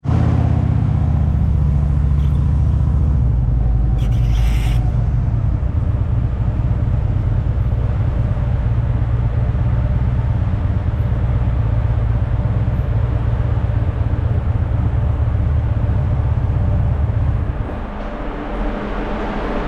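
Harley-Davidson V-twin motorcycle engine running with a steady low rumble, which drops away about 18 seconds in. A short hiss comes about four seconds in.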